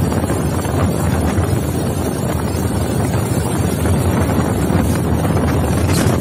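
Wind rushing over a phone microphone on a moving Bajaj Pulsar motorcycle, with the engine running steadily underneath at cruising speed.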